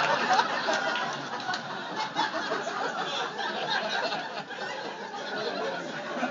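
A club audience laughing after a punchline. The laughter is loudest at first and dies down after a couple of seconds into scattered chuckles and murmurs.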